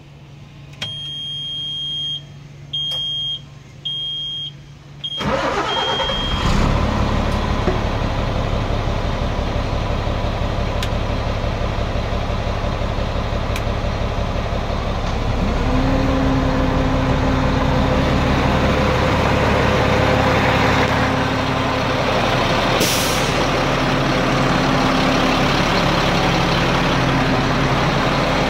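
Heavy truck's diesel engine started: four high warning beeps sound first, then about five seconds in the engine cranks, fires and settles into a steady idle. Its engine note steps up about ten seconds later, and a brief air hiss comes near the end.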